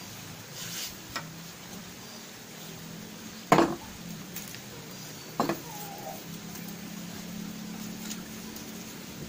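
Two sharp metal clanks about two seconds apart as a steel knife blade and the jaws of a bench vise knock together, over a steady low hum.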